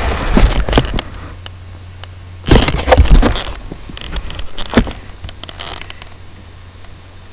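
Crackling and scraping handling noise from a phone's microphone as it is moved about, in irregular bursts, loudest about halfway through, over a low steady hum.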